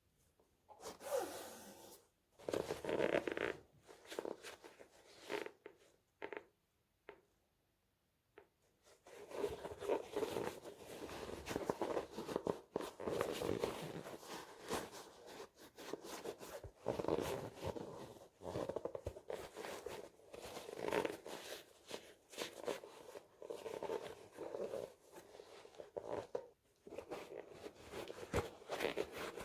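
Crinkling, rustling handling noises of sneaker packaging and shoes being handled during an unboxing. A few short bursts and clicks come first, then a near-quiet gap, then steady crinkling from about a third of the way in.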